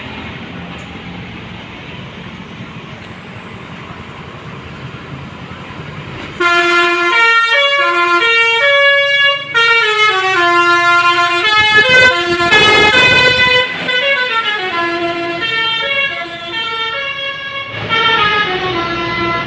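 A bus engine runs steadily. Then, about six seconds in, a loud telolet musical horn (Basuri type) plays a tune of quick stepped notes running up and down, with two short breaks.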